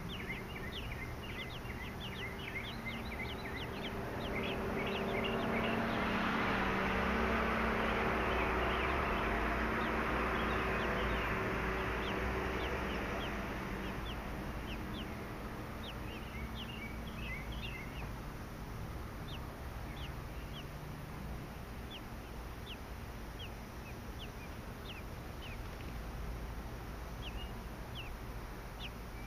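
Three-day-old American robin nestlings begging for food with rapid, thin, high peeps in clusters. A broad rushing noise with a low hum swells over several seconds in the first half and then fades.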